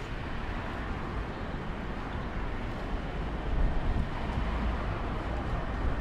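City street ambience: a steady rumble of road traffic, swelling a little about halfway through.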